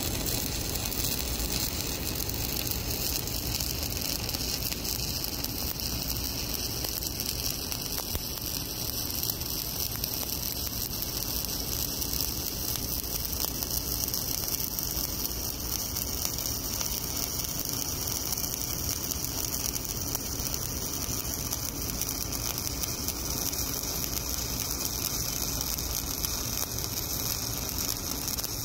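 Steady, even crackle of an E7018 stick-welding arc laying a fill pass in a horizontal groove weld: the sound of a stable arc running at a constant length.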